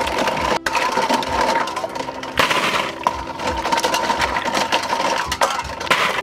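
Water splashing and dripping as handfuls of wet freshwater snails are scooped from a bowl of water and dropped into a stainless-steel bowl, their shells clattering against the metal and against each other in quick clicks.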